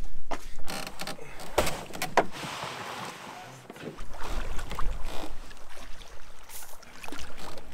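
Footsteps and knocks of a canoe being carried overhead on a forest trail, then, about four seconds in, a canoe being paddled, with paddle strokes and water.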